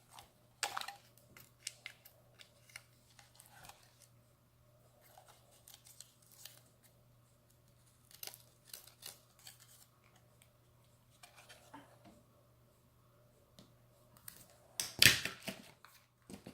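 Scattered sharp snips and clicks of a small hand cutting tool at work on the turn signal's wiring and small plastic parts, with a louder flurry of clicks near the end.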